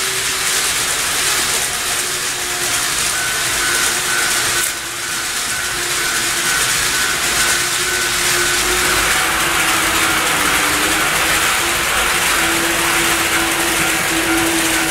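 N-gauge model train running on its track: a steady whirring hiss of motor and wheels, with a motor whine that wavers and shifts in pitch. A faint high tone pulses quickly for a few seconds in the middle.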